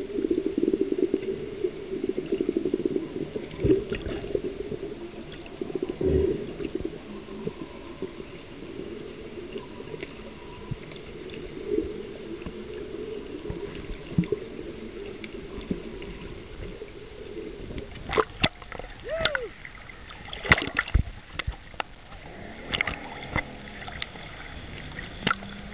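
Underwater ambience heard through a submerged camera: a steady muffled rush with gurgling. About three-quarters of the way through the camera breaks the surface and there are sharp splashes and water sloshing.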